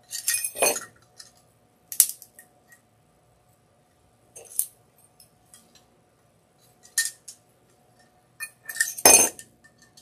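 Small tin cow bells clinking and rattling as they are handled and wired onto a wreath, in several separate bursts, the loudest near the end.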